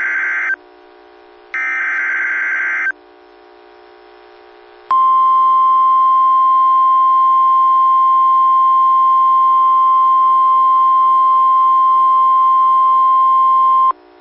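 NOAA Weather Radio alert signalling: two short bursts of SAME header data, then, after a pause of about two seconds, the 1050 Hz warning alarm tone, one steady loud tone held for about nine seconds before it cuts off. It marks the start of a new warning message.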